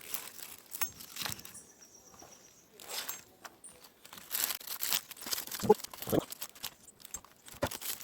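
Crinkling and rustling of a cooked banana-leaf wrapping being handled and pulled open, with scattered clicks and a few soft knocks.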